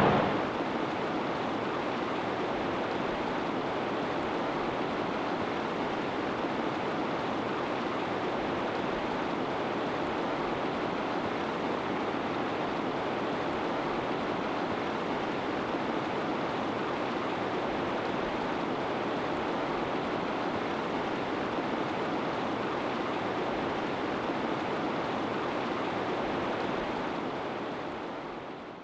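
A shallow, stony river rushing steadily, fading out near the end.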